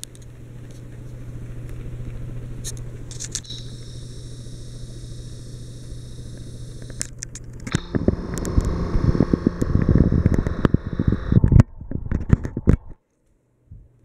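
Harbor Breeze Armitage hugger ceiling fan running, its motor giving a steady low hum. About halfway through, a louder crackling rumble on the microphone covers the hum. The sound cuts out to silence shortly before the end.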